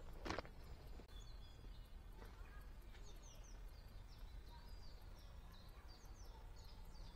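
Faint birdsong, many quick short chirping notes from small birds, with a single footstep on the tarmac path just after the start.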